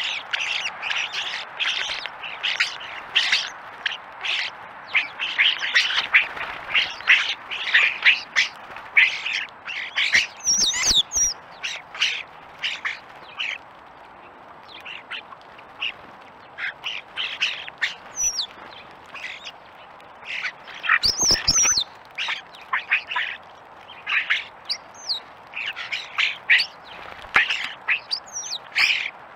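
A flock of European starlings calling while they feed: a near-continuous run of short harsh squawks and chatters, with a few high whistles now and then and two louder flurries about ten seconds apart.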